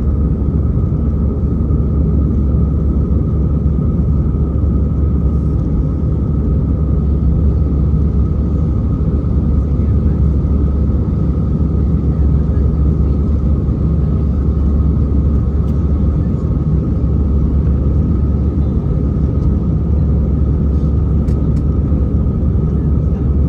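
Steady cabin drone of an Airbus A320-214 in flight, its CFM56 engines and the airflow heard inside the cabin as a loud, even low rumble with a thin steady whine over it.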